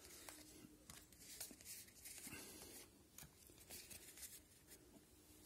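Near silence, with faint scattered rustles and light clicks of trading cards being handled and shuffled.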